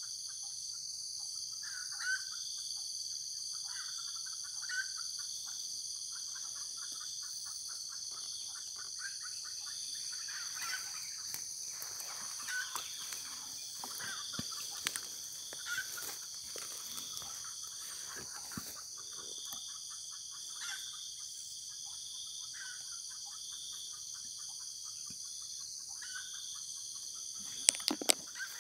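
Junglefowl giving short clucking calls every couple of seconds over a steady high-pitched insect drone. A few sharp clicks sound near the end.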